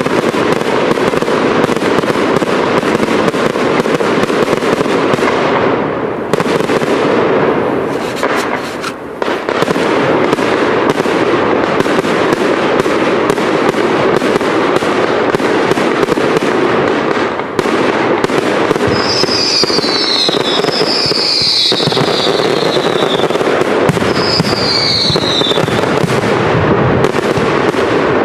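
Professional fireworks display: a dense, continuous barrage of bangs and crackling shells, briefly thinning about eight seconds in. About two-thirds of the way through, a few high whistles fall in pitch over the crackle.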